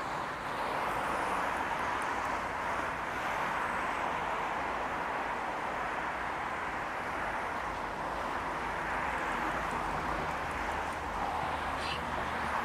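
Steady road-traffic noise of a busy city street: a continuous hiss of passing cars with a low rumble that grows slightly partway through, and a brief high chirp near the end.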